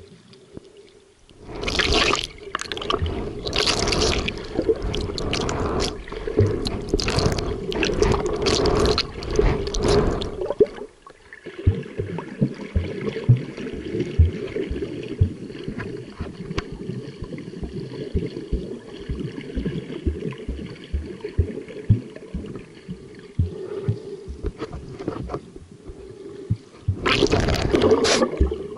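Water heard through a camera held underwater: a swimmer's kicking and splashing make loud rushing, churning water noise for several seconds, then a quieter gurgling wash with soft knocks, and another loud rush of splashing near the end.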